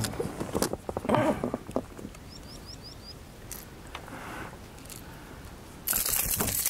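A small bird gives a quick run of about five short, high chirps a couple of seconds in, over scattered light clicks and handling noise. Near the end a sudden loud rush of hiss sets in and lasts to the end.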